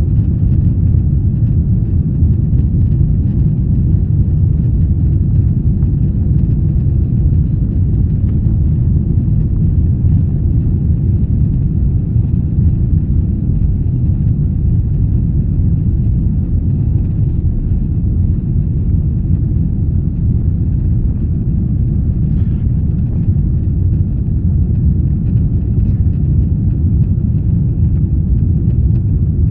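Steady low rumble of a Boeing 777-300ER's GE90 jet engines and airflow, heard from inside the passenger cabin.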